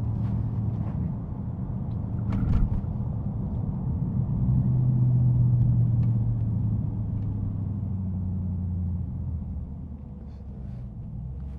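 Dodge Scat Pack's 6.4-litre V8 engine running as the car drives, a steady low drone that swells louder from about four to seven seconds in and then eases off. A short knock about two and a half seconds in.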